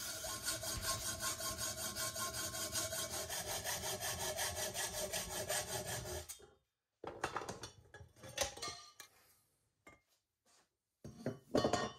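Hacksaw cutting through a 2.5-inch stainless steel pipe bend clamped in a vise, in quick, even strokes. The sawing stops abruptly about six and a half seconds in, followed by a few short knocks.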